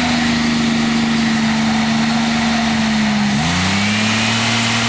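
GM 3.8-litre V6 car engine running fast with its throttle wedged open by a piece of wood. The note holds steady, then dips sharply about three and a half seconds in and climbs straight back up.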